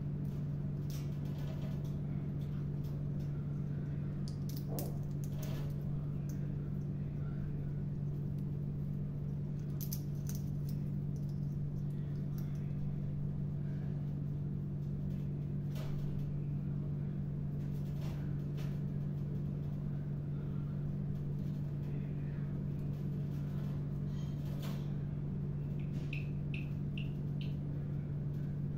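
A steady low hum, with scattered clicks and taps from an African grey parrot's beak working in its metal food bowl and on the cage. A few short, soft high chirps come near the end.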